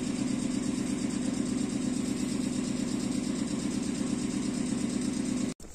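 A Gakunan Railway 7000-series electric railcar stands at the platform with its onboard equipment running, a steady low hum.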